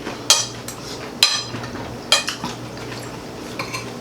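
Cutlery clinking against dinner plates during a meal: a few sharp, ringing clinks roughly a second apart, the last ones weaker.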